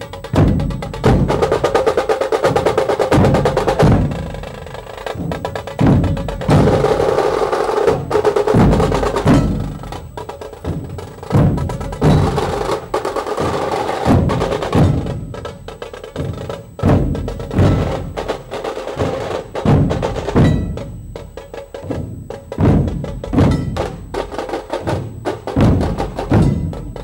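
Dhol-tasha ensemble playing: large dhol drums beaten with sticks in a driving rhythm over fast tasha drum rolls. The playing is dense in the first half and thins to sparser, separate heavy beats about halfway through.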